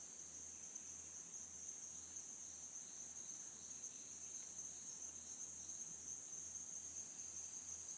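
Steady, high-pitched chorus of insects trilling in the background, unbroken throughout.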